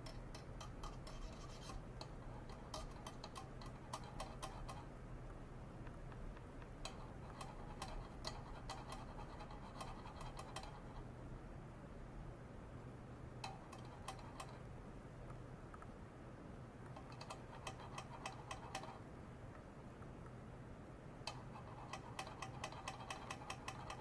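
Bursts of rapid, faint ticking and crackling from an ultrasonic probe driven by a function generator in a beaker of water. Each burst lasts one to two seconds and they come every few seconds, about six in all, over a faint steady hum.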